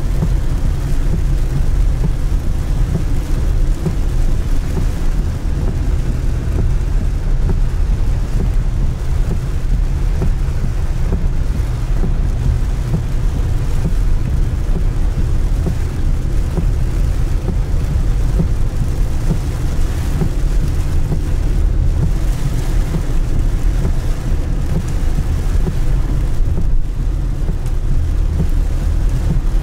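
A car driving in the rain: a steady low rumble of road and tyre noise with the hiss of rain.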